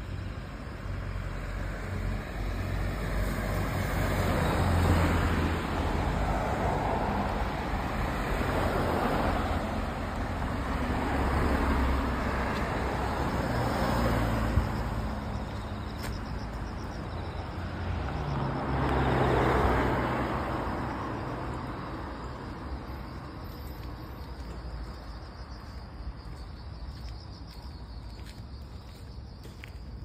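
Road traffic passing on a freshly repaved road. Several vehicles go by one after another, each swelling and fading with tyre and engine noise; the loudest pass at about 5, 12 and 20 seconds in, and it grows quieter near the end.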